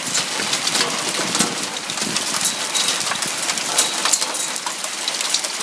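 Rain mixed with small hail falling steadily, a dense patter of many tiny hits.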